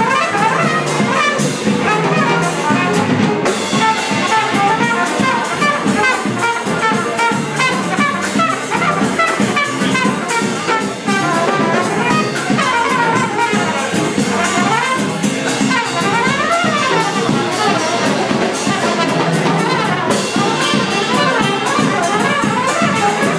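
Live jazz band playing an instrumental passage: trumpet and saxophone over upright bass, drums and piano.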